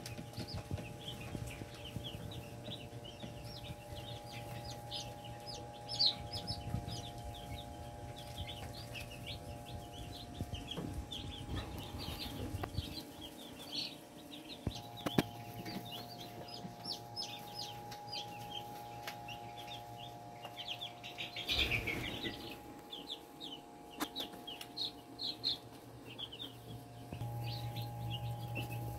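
A brood of day-old broiler chicks peeping constantly, many short high cheeps overlapping one another, over a steady low hum that drops out for a while in the middle.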